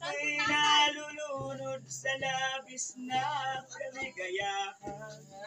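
A man singing in phrases to his own acoustic guitar accompaniment.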